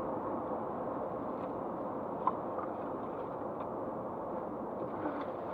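Steady cabin noise of a car cruising at highway speed, about 80 mph, heard through a dashcam's microphone: an even tyre and wind noise with a faint drone. A single short click about two seconds in.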